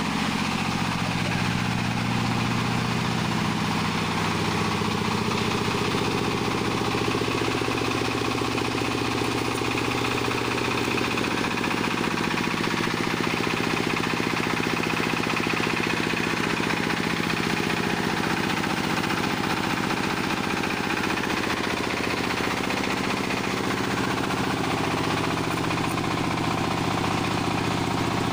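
Jiangdong ZH1135 37 HP single-cylinder diesel engine running steadily, driving a 31 kVA three-phase generator set.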